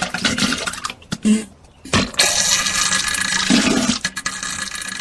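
Diarrhea sound effect: wet sputtering and splashing in irregular bursts. It pauses briefly about one and a half seconds in, then comes back suddenly in a long, loud spurt.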